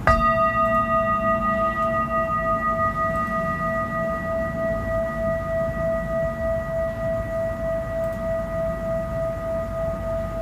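Metal singing bowl struck once and left ringing: one steady low main tone with a few higher overtones, the highest fading within the first couple of seconds, the ring pulsing slowly as it sustains.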